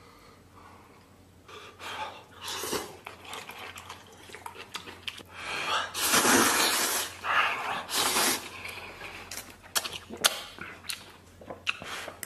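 A person slurping instant noodles from a bowl in big mouthfuls: several long, noisy sucking slurps starting about a second and a half in, the loudest about six seconds in, with a few short clicks between.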